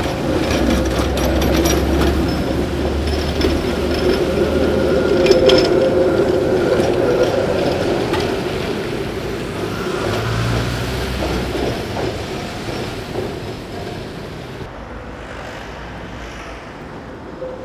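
Tatra T4SU tram running past on its rails: a steady rumble and hum from the wheels and running gear, with a few sharp clicks, loudest about five to six seconds in. About fifteen seconds in, the sound drops to a quieter street rumble.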